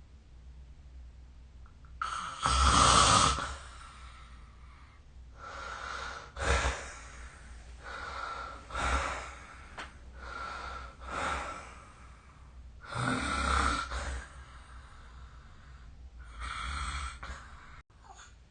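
A sleeping person snoring: about six snores, one every two to three seconds. The first, about two seconds in, is the loudest.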